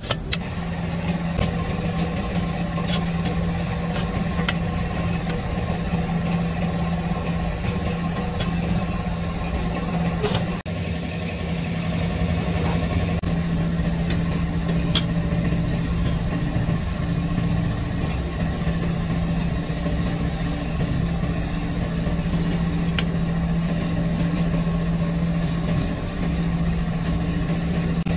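A steady engine-like drone, as of an engine idling, with a few light clicks scattered through it.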